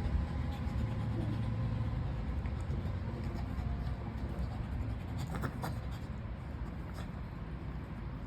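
Shih Tzu puppy scratching and gnawing at a coconut: the husk scrapes and rasps, with a few sharp clicks in the second half, over a low steady rumble.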